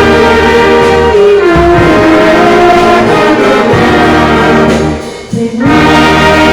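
A band playing a Christian worship song, led by sustained brass-like notes. The sound drops briefly about five seconds in, then the band comes back in.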